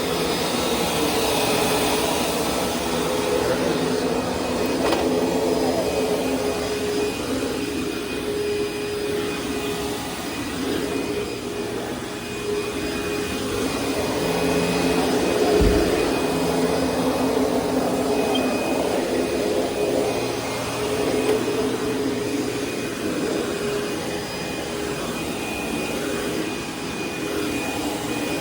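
Sharp Super Charged Twin Energy EC-T2840 upright vacuum cleaner running steadily, its motor giving a constant whine with a few steady tones, the loudness rising and falling as it is worked back and forth. A single thump about halfway through.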